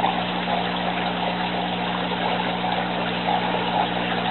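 Aquaponics water pump humming steadily, with water trickling and splashing as it circulates through the system.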